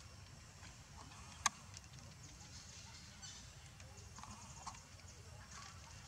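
Faint outdoor background with scattered light ticks and one sharp click about a second and a half in.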